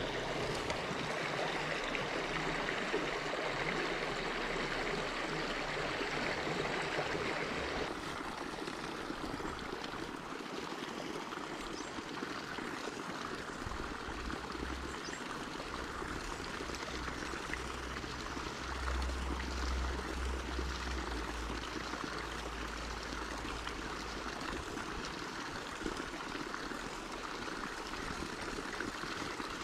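Shallow mountain stream running over rocks: a steady rush of water, a little softer and less hissy after a cut about eight seconds in. A low rumble comes and goes in the middle.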